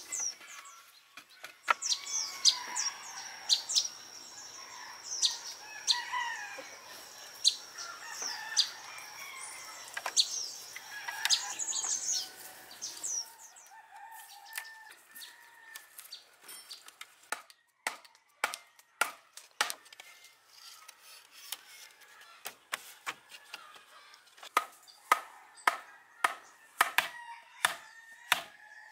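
Birds chirping over a steady high tone for the first half. Then a run of sharp wooden knocks, about one or two a second, from a wooden club pounding a post into the ground.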